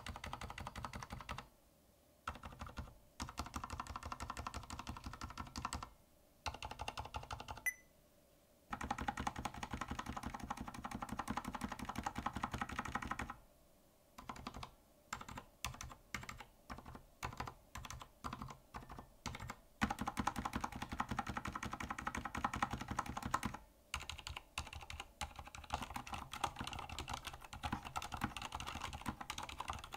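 Typing on a Durgod Fusion mechanical keyboard fitted with Cherry silent red switches and PBT keycaps, a soft, muted clacking. Runs of quick keystrokes are broken by short pauses, with a stretch of separate single key presses, about two a second, around the middle.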